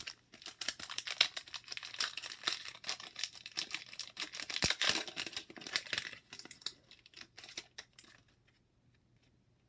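Foil wrapper of an Upper Deck Series 2 hockey card pack crinkling and tearing as it is ripped open: a dense run of crackles that stops about eight seconds in.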